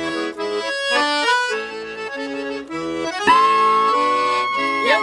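Accordion music: a melody of short held notes, then one long sustained note from about three seconds in.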